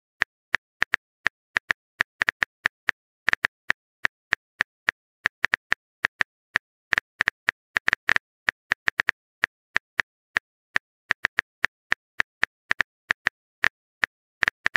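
Smartphone keyboard click sounds of a message being typed: short, sharp taps at an uneven pace of about four a second, with brief pauses.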